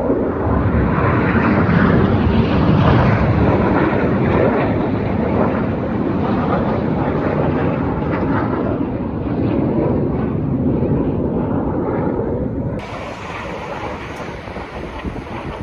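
Jet aircraft flying past: a loud roar that peaks a few seconds in and then slowly fades. About thirteen seconds in it cuts abruptly to quieter wind noise on the microphone.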